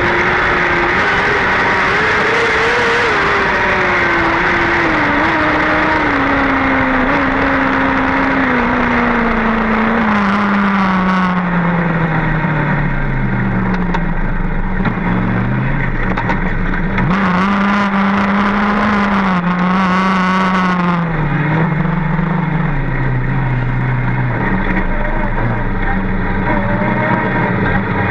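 Onboard sound of a winged micro sprint's engine easing off: its note falls steadily for about twelve seconds, picks up briefly, then drops again to a low, slow run as the car rolls at low speed, with wind rushing over the microphone while it is still going fast.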